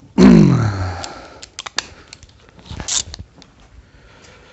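A cordless impact tool's motor runs briefly and winds down with a falling whine, followed by a few scattered clicks and taps of tools being handled.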